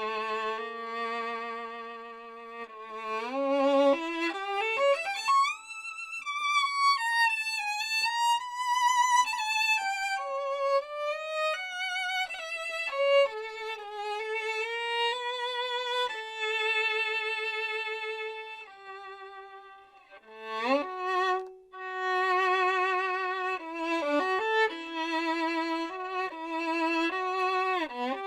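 Solo violin playing a slow, singing melody with vibrato, sliding up into a high register and working back down. There is a short break about twenty seconds in before the melody resumes.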